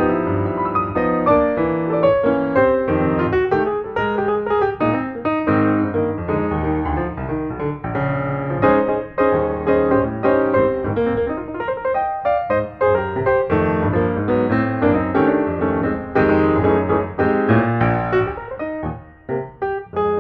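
Piano music with many quick notes.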